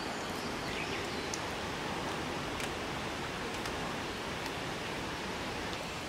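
Steady outdoor hiss of ambient noise, with a few faint scattered ticks.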